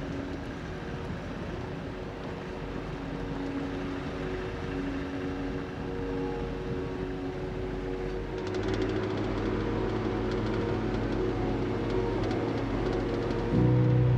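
Toyota Land Cruiser 105 driving on a stony dirt road, heard from outside beside the front wheel: a steady engine hum over tyre and gravel noise. About a second before the end it gets abruptly louder, with a stronger low engine drone.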